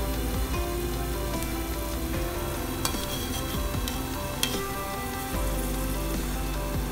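Moong dal pakoras sizzling steadily as they deep-fry in hot oil in a kadhai. A slotted metal spatula stirs and turns them, clicking against the pan twice.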